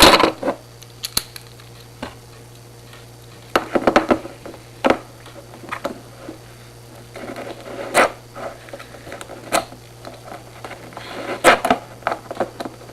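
Irregular clicks, taps and brief scrapes of small metal objects being handled: padlocks and homemade lock-picking tools. A low steady hum runs underneath.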